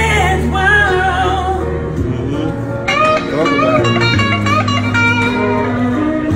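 Electric guitar played through a small portable amplifier: a slow, bluesy lead line of bent notes with vibrato over held low notes.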